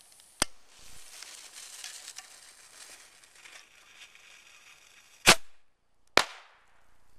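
Black Cat bottle rocket in a homemade launcher: a sharp click, then the lit fuse hissing faintly for about five seconds, then two loud sharp bangs about a second apart as the rocket fires and goes off.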